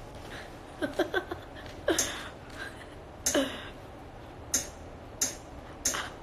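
A woman's scattered, quiet vocal sounds: a few brief murmured syllables, then three or four short breathy puffs spaced under a second apart near the end.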